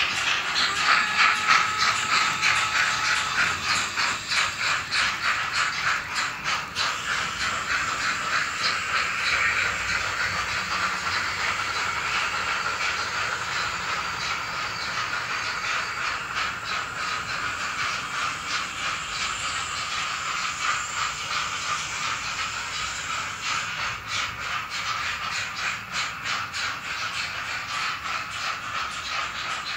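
N gauge model trains running on the layout's track: a steady rattle of small wheels and motors, with a dense stream of quick clicks as the wheels pass over rail joints and points.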